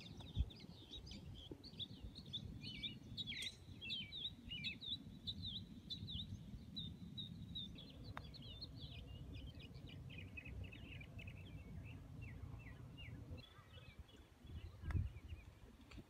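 Birds chirping in many quick, short calls over a low, uneven rumble of wind on the microphone, with one sharp knock about half a second in.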